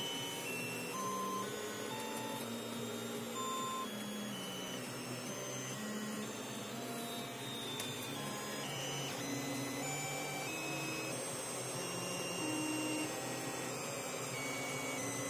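Creality CR-10 3D printer printing. Its stepper motors whine in short steady tones that jump from pitch to pitch as the print head changes moves, over the steady rush of its cooling fans.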